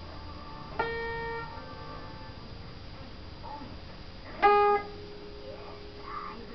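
Two single notes on a musical instrument: one about a second in, held briefly, and a louder one about four and a half seconds in that drops back quickly and then rings on quietly.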